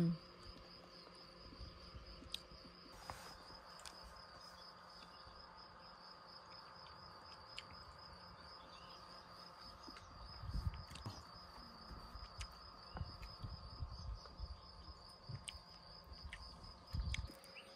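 Meadow insects trilling steadily in a high, fast-pulsing chorus. From about halfway through, gusts of wind buffet the microphone with low rumbles.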